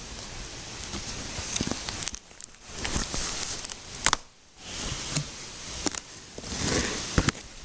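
A cardboard shipping box being handled and opened: irregular rustling, scraping and clicking of cardboard and paper, with a short pause a little past four seconds in.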